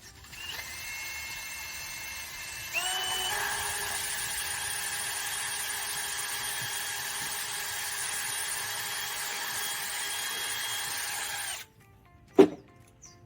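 A small electric power tool runs with a steady whine that steps up in pitch about three seconds in and cuts off near the end. A single sharp knock follows.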